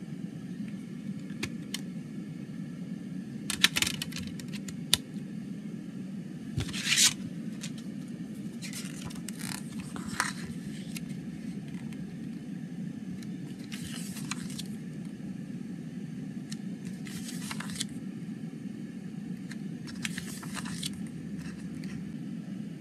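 Paper pages of a CD lyric booklet being handled and turned, giving short rustles every few seconds, with a few sharp clicks about four seconds in as the booklet comes out of the plastic jewel case. A steady low hum lies underneath.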